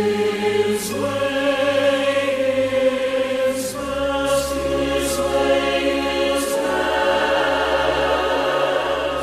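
Christian gospel music: held, choir-like sung notes over instrumental accompaniment, with a few light percussion strikes.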